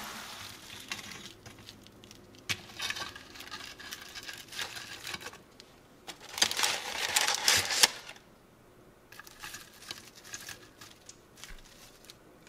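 Parchment paper rustling and crinkling in a wire frying basket as tongs lift French fries out and set them on a plate. It comes in short scattered bursts, the loudest lasting a couple of seconds around the middle, with light taps in between.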